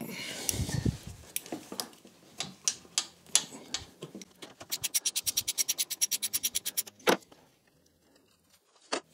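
Hand ratchet with a 12 mm socket turning out a bolt: scattered clicks and knocks, then a little over two seconds of fast, even ratchet clicks at about ten a second, ending in a sharper clack.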